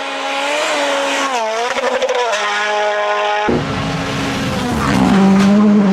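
Rally car engine at full effort, its revs rising and falling through gear changes on a loose-surface stage. About three and a half seconds in the sound changes abruptly to a heavy low rumble and rushing noise, then the engine settles on a steady high note.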